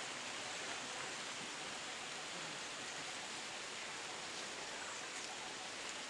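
Steady, even outdoor hiss with no distinct events: background ambience among trees and grass.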